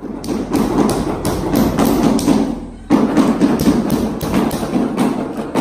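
Hammer striking a steel chisel to chip rough concrete off the top of a wall. The blows come about four a second, with a short pause a little before halfway.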